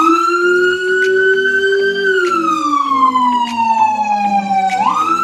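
Electronic police siren sounding a wail: the tone sweeps up quickly, holds high, then falls slowly for about three seconds before sweeping up sharply again near the end.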